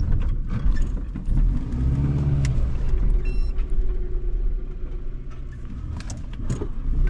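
SUV engine running with a low rumble from the cabin while driving on a rough dirt track. Its pitch rises and falls once about two seconds in, and a few sharp knocks and rattles come from the bumpy ground, the loudest near the end.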